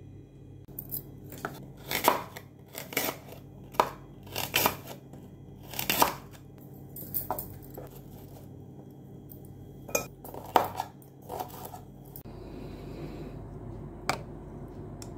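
A knife cutting and scraping through apple and other fruit on a plate: a dozen or so short strokes at irregular spacing, ending about twelve seconds in. Near the end comes a single clink of a spoon against a bowl.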